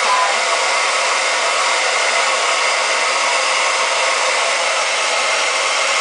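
Handheld hair dryer blowing steadily on its high setting.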